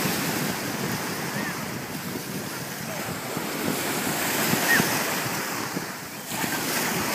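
Steady wind noise buffeting the microphone over water washing in the background.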